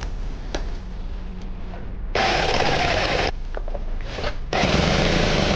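A power tool's motor run in two short bursts of about a second each, its note sagging a little in the first; the tool is weak, lacking power.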